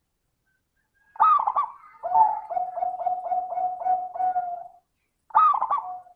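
Zebra dove (perkutut) singing. A short quick burst of notes leads into a steady run of about eight repeated cooing notes at one pitch, and a second phrase starts near the end.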